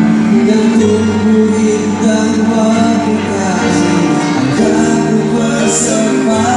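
Live music played over a PA system, with men singing into microphones over sustained accompaniment chords.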